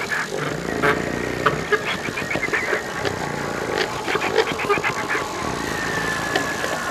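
Live free-improvised experimental music: scattered clicks and rasping, noisy textures without a tune or beat, with a thin, high, steady tone coming in near the end.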